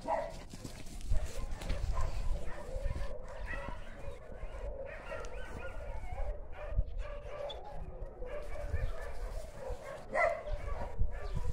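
Dogs barking and yipping now and then, loudest right at the start and again about ten seconds in, with low rumbling and thumps on the microphone underneath.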